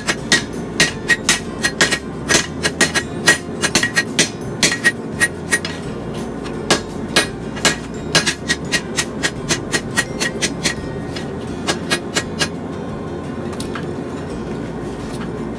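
Hand hammer forging a glowing Damascus steel billet on an anvil: sharp, ringing blows at about two a second, with a short pause around six seconds in, and the blows stop about twelve seconds in.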